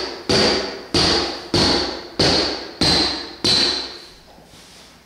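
Hammer blows driving wood flooring boards, a sharp strike with a metallic ring about every two-thirds of a second, seven in a row, stopping about a second before the end.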